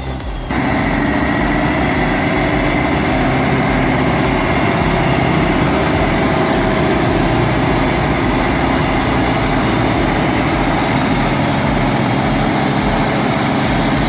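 A vehicle engine running steadily with a high whine over it. The sound starts abruptly about half a second in.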